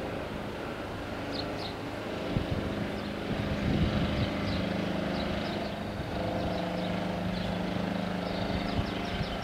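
Steady engine hum of a vehicle idling, with small birds chirping now and then.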